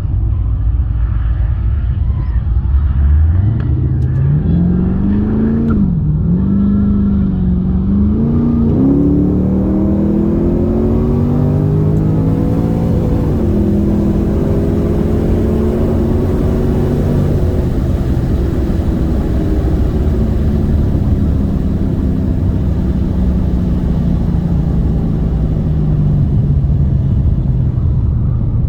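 Holden VX Commodore SS's LS1 V8 accelerating hard at full throttle: the revs climb sharply about three seconds in, drop at gear changes near six and thirteen seconds, then fall slowly as the throttle comes off.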